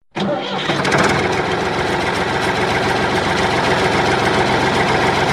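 Small motor of a homemade mini toy tractor running steadily with a fast, even mechanical buzz that starts abruptly just after the start.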